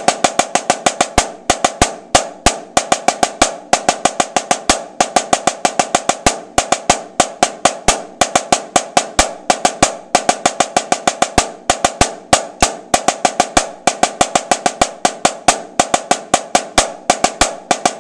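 Snare drum played with wooden sticks: a rudimental solo passage at a slow tempo, a dense run of strokes with louder accents and short rolls mixed in, each stroke ringing briefly.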